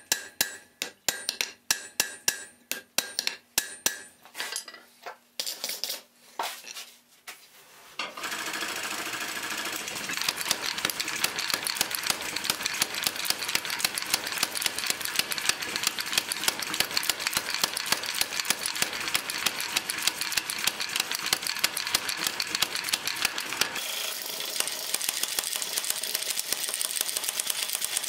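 A hand hammer strikes hot iron bar stock on an anvil, about three blows a second at first, then more slowly. About eight seconds in it gives way to a power hammer pounding the hot bar in a rapid, even run of blows.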